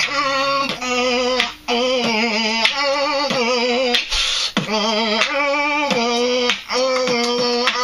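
Beatboxing: a hummed vocal tone with a warbling pitch, broken every second or so by sharp mouth clicks and snare sounds, with a longer hissing cymbal-like burst about four seconds in.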